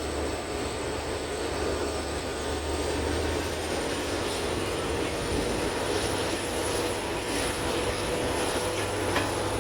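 Passenger train running, heard from on board: a steady rumble from the wheels and coach with a low hum, and a thin high whine that rises slightly in pitch a couple of seconds in.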